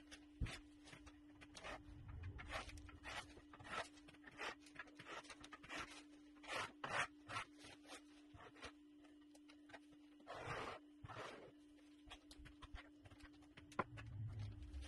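Hand trowel scraping and spreading wet feather finish concrete across a countertop in many short, irregular strokes. A steady low hum runs underneath.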